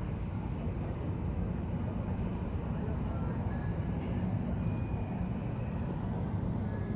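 Steady low rumble of jet aircraft and ground equipment on an airport ramp, with faint short whistling tones now and then above it.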